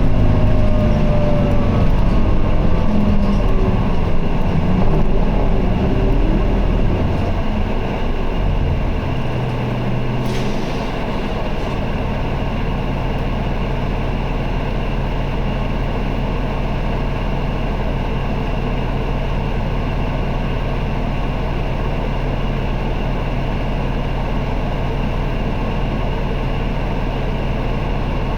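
Isuzu Erga city bus's diesel engine heard from inside the bus: the engine note falls away over the first several seconds as the bus slows, a short hiss of air comes about ten seconds in, and the engine then idles steadily with a low hum.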